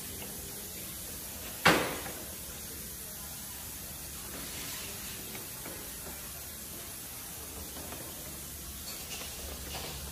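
Paper grocery bag rustling and crinkling as a cat moves inside it, with one loud sharp sound about two seconds in and a few faint crackles later, over a steady hiss.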